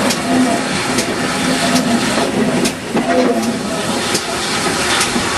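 Steady rumble and rattle of a railway carriage on the move behind a steam locomotive, with scattered sharp clicks from the wheels and fittings.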